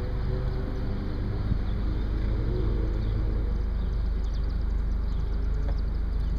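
Steady low rumble of wind and road noise in an open-top Mercedes convertible, with its engine running underneath.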